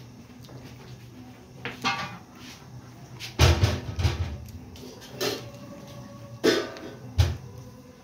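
Steel pots, bowls and cooking utensils being handled, giving separate clanks and knocks, with a loud cluster about three and a half seconds in and two more about six and a half and seven seconds in, over a steady low hum.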